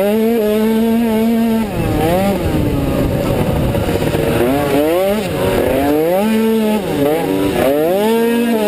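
Automatic cross scooter engine at racing revs, held at a steady high pitch, then dropping and climbing again twice as the throttle is eased and reopened, over a constant rush of wind noise.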